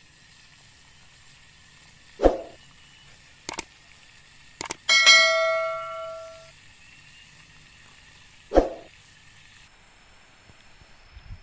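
Sound effects of a subscribe-button intro animation. Two short hits come about 2 and 8.5 seconds in, and sharp mouse clicks come around 3.5 and 4.5 seconds. Right after the clicks a notification-bell ding rings and fades over about a second and a half.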